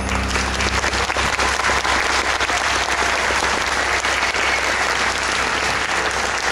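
Large audience applauding, a dense, steady patter of clapping that swells in as the last held note of the show music dies away within the first second.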